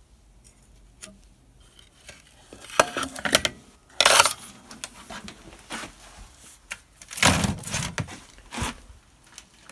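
Plasma TV parts being handled and dismantled: scattered knocks and clatter from about three seconds in, a sharp noisy scrape or rip about four seconds in, and a longer rustling, scraping noise around seven seconds in.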